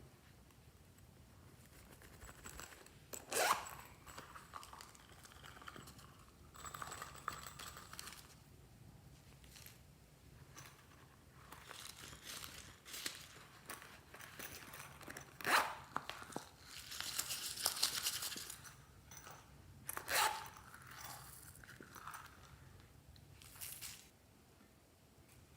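Slime being worked and mixed by hand, with irregular crinkling, crunching and tearing noises and a few sharp clicks.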